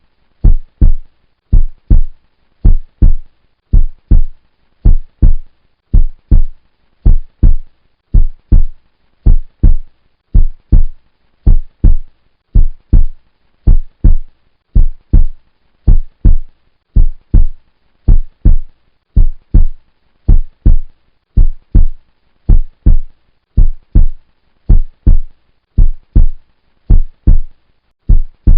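A heartbeat: deep thumps in pairs, lub-dub, repeating steadily about once a second.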